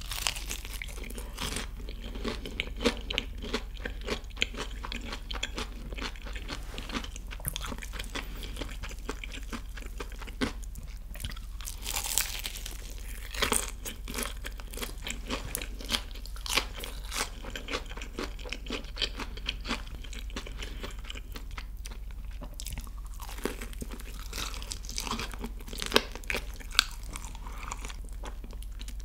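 Close-miked bites and chewing of a crispy BBQ Golden Olive fried chicken drumstick: irregular crunching of the fried crust throughout, with a few louder crunches.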